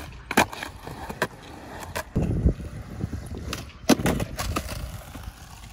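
Skateboard with counterfeit trucks doing kickflips on concrete: a series of sharp clacks as the tail pops and the board lands and slaps the ground, with the wheels rumbling as they roll between them.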